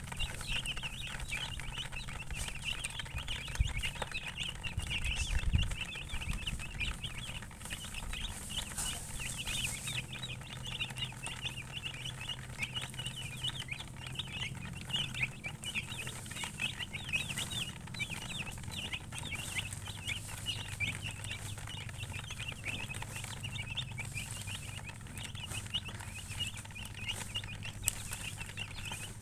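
Many chicks peeping together, a dense unbroken chorus of short high chirps, over a low steady hum.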